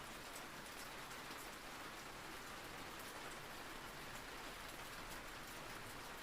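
Steady rain falling, a soft even hiss with scattered light drop ticks.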